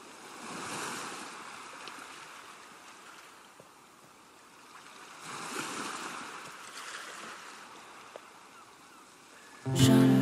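Rushing ambient noise that swells and fades away twice. Near the end, music starts abruptly with sustained tones and a deep bass.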